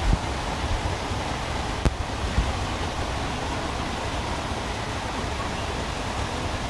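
Steady rushing noise of wind on the microphone, with an uneven low rumble and a few light knocks, one a sharp click about two seconds in.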